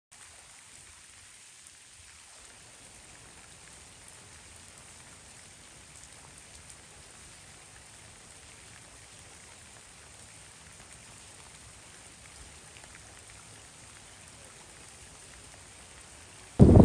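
Faint, steady rain falling on clover and fallen leaves: an even hiss with scattered soft drop ticks. A loud rush of wind on the microphone cuts in suddenly at the very end.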